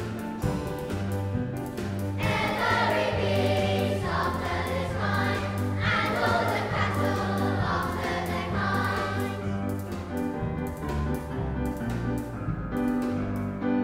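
Children's choir singing with a chamber orchestra, the voices moving over held low notes in the orchestra, in a large stone church.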